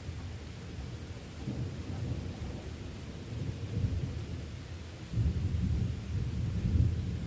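Rolling thunder rumbling in low, repeated swells over the steady hiss of rain. The rumble grows louder about five seconds in.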